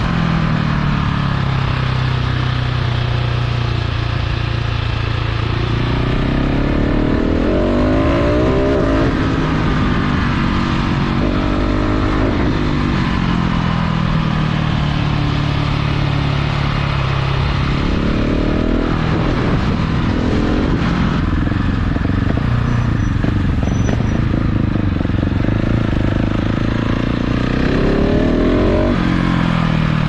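KTM 690 SMC R's single-cylinder four-stroke engine through a full LeoVince exhaust, ridden hard along a winding road. Its pitch climbs steeply several times under acceleration and drops back between, as the rider opens the throttle out of bends and rolls off for the next.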